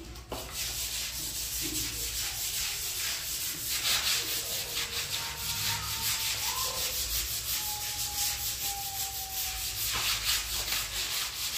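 Scrub brush and sponge scrubbing a wet plastic banner spread on a concrete floor, in rapid back-and-forth strokes repeated steadily.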